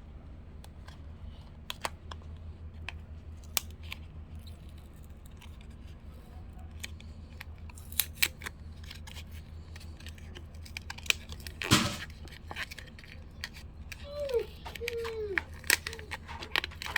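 A small cardboard blind box being handled and opened, with scattered clicks and rustles and one loud crinkling tear about twelve seconds in, over a steady low hum.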